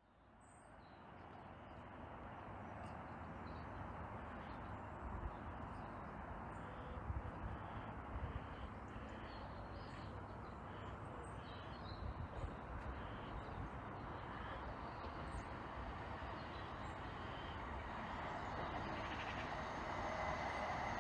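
Outdoor ambience: a steady rushing noise that slowly grows louder near the end, with scattered bird calls over it.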